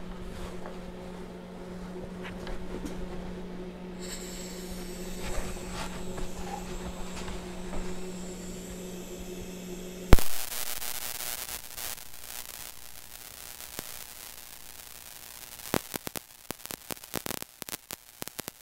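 A steady electrical hum, then about ten seconds in a sharp pop as the TIG arc strikes on a cast aluminium clutch housing. The arc hisses steadily and then crackles irregularly near the end, welding over a crack that the welder thinks still holds gear oil.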